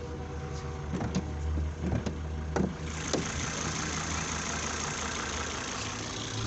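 Turbocharged five-cylinder engine of a 2004 Volvo XC70 idling steadily, with a handful of sharp clicks and knocks in the first three seconds and a steady hiss joining about three seconds in.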